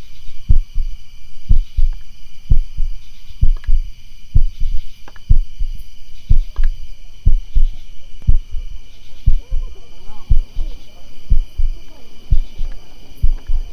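A heartbeat: low double thumps, about one beat a second, over a steady high ringing tone. From about ten seconds in, faint wavering sounds join in.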